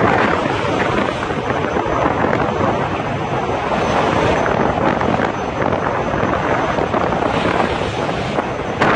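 Strong storm wind at sea blowing across the microphone aboard a ship, a loud steady rush of wind and water that swells in gusts a few times.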